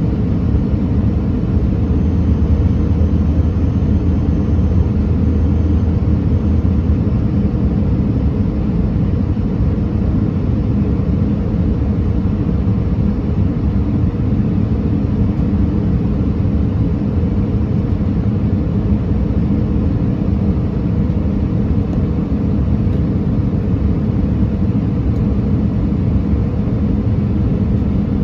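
Airbus A319 cabin noise heard from a window seat over the wing on final approach: the CFM56 engine and the airflow make a steady rumble with a low hum that drops away about seven seconds in.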